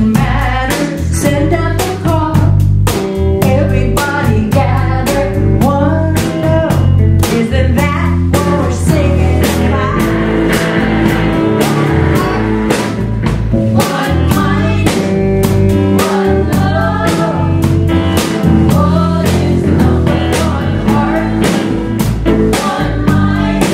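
Live rock band playing: electric guitars and bass over a steady drum-kit beat, with voices singing.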